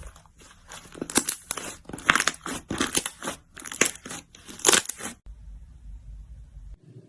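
Slime being squeezed and pressed by hand, giving crunchy crackling and popping sounds in a run of short bursts about every half second. The crackling stops about five seconds in and a brief low hum follows.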